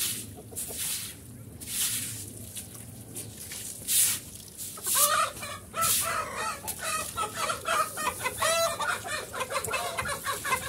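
A scrub brush swishing in strokes over a wet concrete wall while a hose runs, and from about halfway in, domestic chickens clucking over it in many short calls, with one longer drawn-out call near the end.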